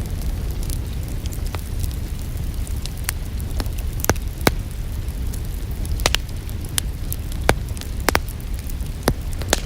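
Fireplace wood fire crackling, with sharp irregular pops over a steady low rumble.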